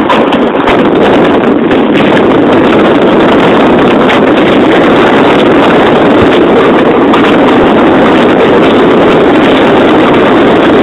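Steady, loud rush of wind over the microphone in a moving convertible with the top down, mixed with the car's road noise.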